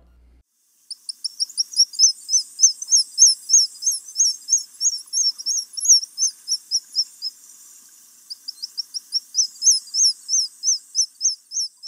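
A bird calling in a rapid series of thin, high chirps, each rising and falling in pitch, about three or four a second. The calls start about a second in, break off briefly past the middle, then resume.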